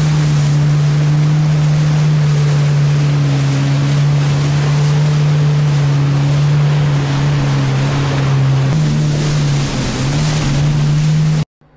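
Jet ski engine running at high throttle, a steady, even drone over the rush of wind and water spray; it cuts off abruptly near the end.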